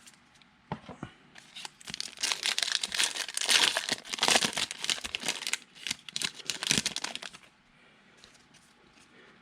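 Foil trading-card pack wrapper being torn open and crumpled, a dense crinkling and crackling that runs for several seconds and is loudest in the middle, then stops about two seconds before the end.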